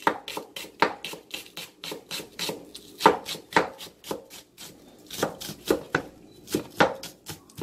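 Kitchen knife slicing green onion thinly on a wooden cutting board: quick, uneven taps of the blade on the board, several a second.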